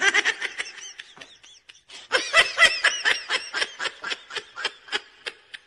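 A person laughing in a quick run of short, high-pitched giggles, softer at first and louder from about two seconds in.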